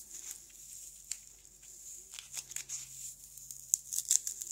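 A thermoplastic cornstarch packing peanut being squeezed and crushed between the fingers, giving soft crinkling and crackling with a few sharper cracks near the end. The foam gives way easily, the sign of the flimsy starch material rather than stiff styrofoam.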